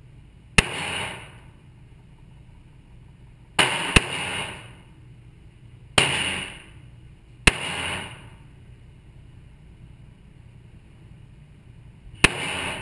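Colt 1911 Gold Cup .45 ACP pistol fired six times at an uneven pace, two of the shots in quick succession. Each report is a sharp crack followed by a short echo off the walls of an indoor range lane.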